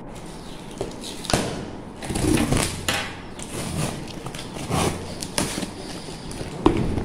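Clear packing tape being peeled and ripped off a cardboard box in several noisy pulls, with a few sharp knocks as the box is handled.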